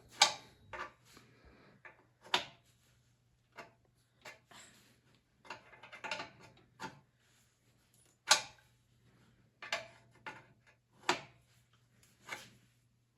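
Scattered sharp metal clicks and taps of a hand tool working the fuel line off a motorcycle's fuel petcock, irregular with short pauses between them, the loudest about eight seconds in.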